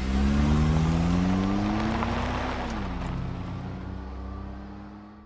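Car engine accelerating away: its note rises, dips about two and a half seconds in, then holds steady while the sound fades into the distance.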